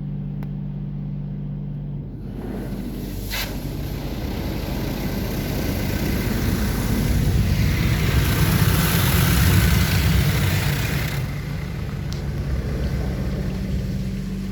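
Oasis Typhoon automatic car wash spraying water onto the car, heard from inside the cabin. The spray starts about two seconds in, grows to its loudest in the middle and eases off near the end, over a steady low hum.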